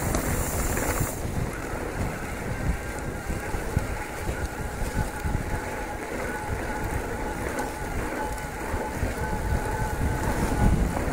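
Wind buffeting the microphone over the rumble and rattle of mountain-bike tyres on a rough stony track, with a faint steady whine from the e-bike's motor.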